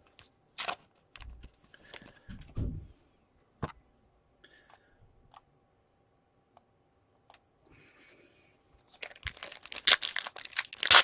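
Trading card pack wrappers crinkling and tearing, with cards handled and flicked through: scattered clicks and short rustles at first, a few light ticks, then a denser spell of crackling rustle from about nine seconds in.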